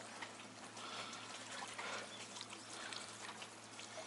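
Light rain and trickling water: a faint, steady hiss with scattered small patters.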